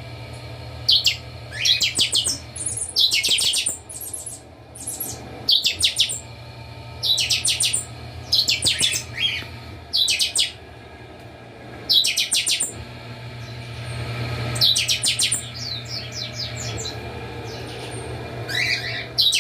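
Several captive buffy-fronted seedeaters (chanchão) singing over one another, in short bursts of fast, clipped high notes about every second or so. A steady low hum runs underneath.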